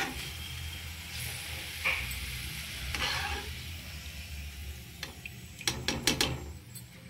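Oil sizzling softly in a kadhai while a perforated steel skimmer scrapes along the pan, scooping out fried onion rings. Several sharp metal-on-metal scrapes and clinks come near the end.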